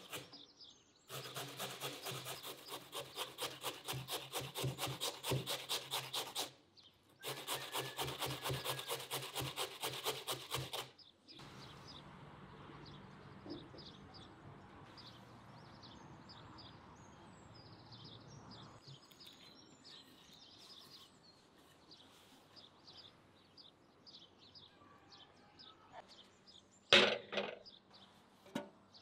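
Fast, even scraping strokes of a kitchen utensil against wood, about six a second, in two runs of several seconds each with a short break between. After them comes a quieter steady hiss with a low hum, and one loud knock near the end.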